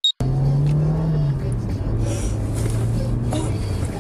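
A short high beep, then a moving car's engine and road noise start abruptly and run steadily, heard from inside the car's boot. The engine note sinks slightly in pitch about a second in.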